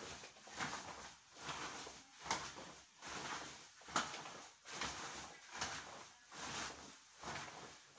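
Rhythmic swishing of a cotton karate gi as the arms swing through repeated rising blocks, about one and a half swishes a second.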